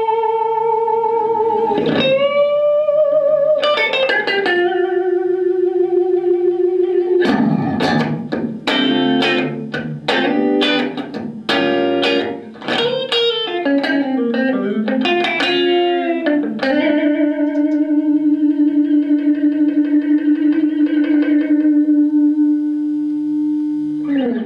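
Electric guitar played through an Artec SE-CMP Turbo Compressor pedal: lead lines of bent notes with vibrato and a flurry of fast picked notes in the middle, ending on one note held with vibrato for about seven seconds, the long sustain the compressor is meant to give, before it stops suddenly.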